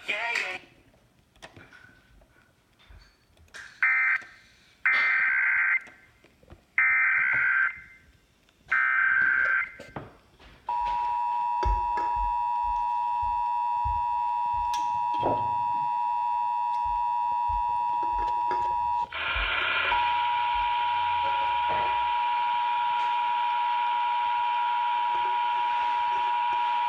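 Emergency Alert System National Periodic Test activation: a series of short, harsh SAME header data bursts, then the steady two-tone EAS attention signal (853 and 960 Hz sounded together), which drops out briefly about halfway through and resumes.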